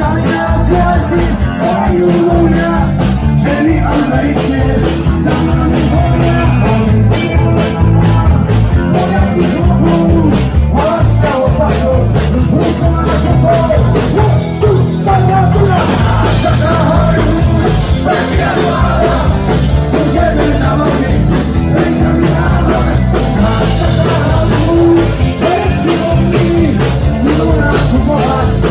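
Live punk rock band playing loudly, with singing, distorted guitar and a fast, steady drum beat, in a rough, overloaded amateur recording.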